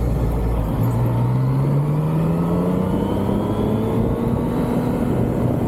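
Yamaha MT-09's three-cylinder engine under way, its pitch climbing steadily for several seconds as the bike accelerates, then dropping back near the end.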